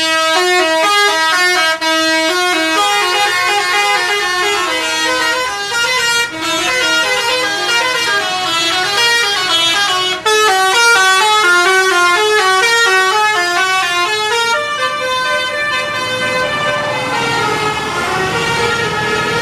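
Bus 'telolet' multi-tone horn playing quick melodic runs of short stepping notes, pausing briefly about two, six and ten seconds in. From about fifteen seconds in, a rushing noise rises beneath the tune.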